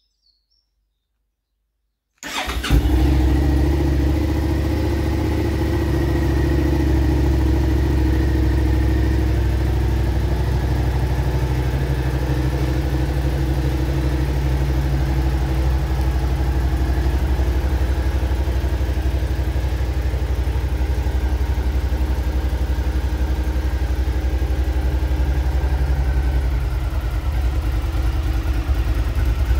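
Suzuki SV650's 645 cc 90-degree V-twin starting about two seconds in after a silence, then idling steadily with the engine part-warm.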